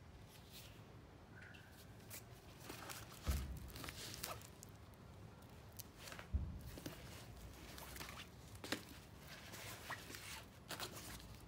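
Faint rustling and light clicks of a nylon tote bag and its webbing shoulder strap being handled, with two low dull thumps about three and six seconds in.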